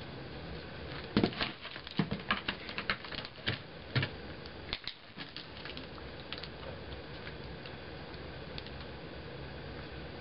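A run of sharp, irregular light clicks and taps, crowded together between about one and six and a half seconds in, then stopping.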